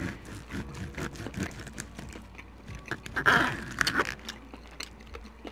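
Close-miked eating sounds of a steak dinner: chewing and mouth noises mixed with small clicks of a steel knife and fork against the plate as the steak is sliced. A louder, noisy mouth or cutting sound comes about three seconds in.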